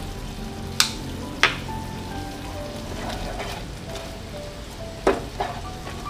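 Cream dory fish pieces frying in a pan with a steady sizzle, with four sharp clicks: two about a second in and two near the end. Soft background music plays over it.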